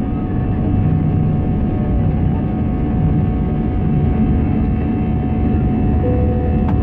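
Jet airliner's engines at takeoff thrust, heard inside the cabin over the wing: a steady, loud rumble with a constant whine on top as the plane lifts off and climbs.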